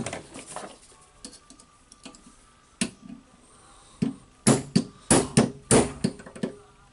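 Hammer blows on a metal punch, driving the spring ring off a Makita HR2811FT rotary hammer's tool holder held in a bench vise. One sharp strike comes about three seconds in, then a quick run of about seven strikes, roughly three a second.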